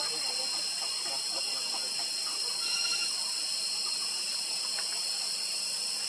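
Steady, high-pitched insect chorus, a dense unbroken shrill hiss.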